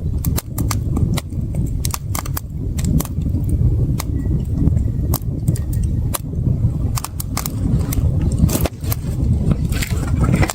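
Campfire of burning wood crackling, with irregular sharp pops over a steady low rumble; the pops come thicker and louder near the end.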